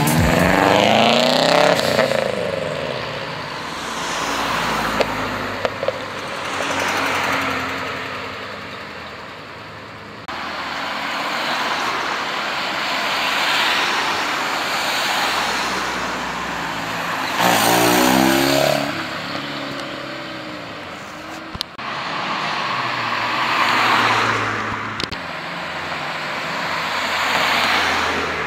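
Cars driving past one after another, each engine note swelling and fading as it goes by. The loudest pass comes about two-thirds of the way through.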